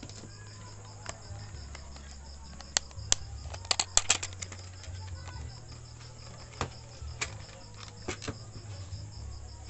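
Scattered light clicks and taps from handling the multimeter probes and camera, with a quick cluster of them about three to four and a half seconds in. Under them runs a steady low hum and a faint, even, high pulsing chirr like crickets.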